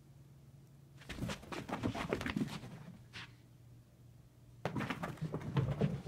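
An excited small dog running about, panting and scrabbling, in two bursts of quick patter and rustle: one about a second in and one near the end.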